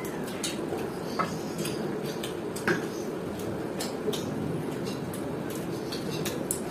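Two people eating with their hands: chewing and mouth sounds, fingers tearing luchi and chicken and dipping into curry, with many small clicks and a few sharper knocks against the plates, over a steady low background noise.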